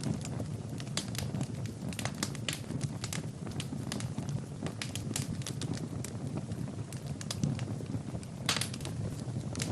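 Wood fire crackling in a fireplace: irregular sharp pops and snaps over a steady low rumble of burning logs, with a couple of louder pops near the end.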